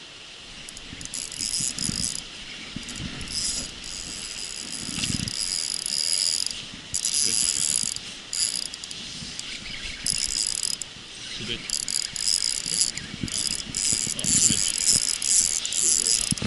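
Spinning reel being cranked in short stop-start bursts, with the reel's gear whirring, as line is wound in.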